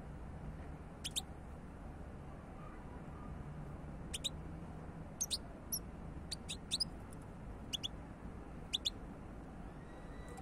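Caged European goldfinch giving short, high chirping calls, one or two at a time every second or so, over a steady low background hiss.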